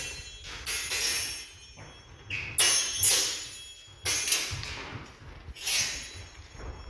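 Steel longswords clashing in sparring: sharp metallic strikes, several in quick pairs, each ringing briefly, in exchanges about a second apart, echoing in a large hall.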